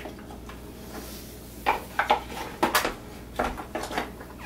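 Baby toys knocking against plastic high-chair trays: after a quiet second and a half, a handful of short, sharp clacks of plastic and wooden pieces hitting the trays.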